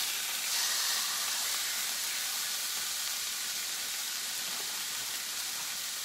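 Seasoned flat iron steak sizzling in a hot oiled cast iron skillet, its seared pieces just turned over for the second side. A steady hiss, a little stronger about a second in, then slowly easing.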